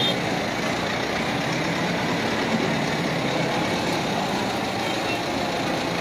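Steady noise of jammed traffic on a flooded street, with vehicle engines running.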